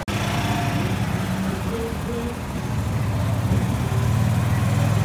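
Vehicle engine running steadily at low speed, a low hum heard from on board, growing a little louder about three seconds in. A brief dropout right at the start.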